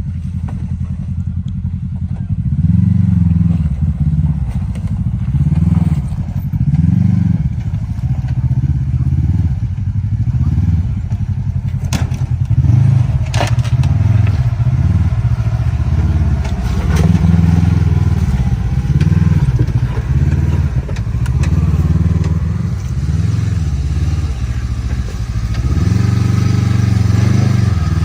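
Side-by-side UTV engine heard from inside the cab, the revs rising and falling every couple of seconds as it is driven along an off-road trail. A few sharp knocks and rattles come through about halfway.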